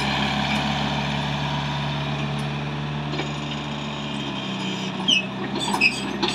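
Kubota U50 mini excavator's Kubota V2203 diesel engine running steadily as the machine travels and turns. A few sharp clanks and short squeaks come in near the end.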